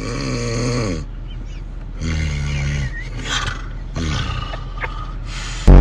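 A person snoring loudly, with a long snore about every two seconds, each one dropping in pitch as it ends.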